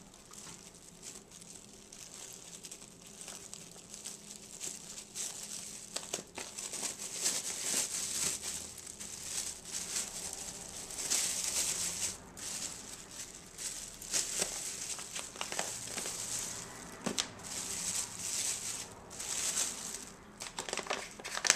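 Clear plastic bag crinkling and rustling as hands unwrap a paper bag of flour from it, in irregular crackles that grow louder about six seconds in.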